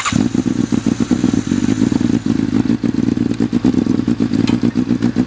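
Formula SAE race car's engine idling steadily and loudly, with a fast, even pulse and no revving, just after being started from an external battery cart.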